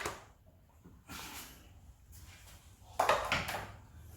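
Plastic headlight housing parts of a motorcycle being handled and pulled apart: a click at the start, a short rustle about a second in, and a louder knock and scrape about three seconds in.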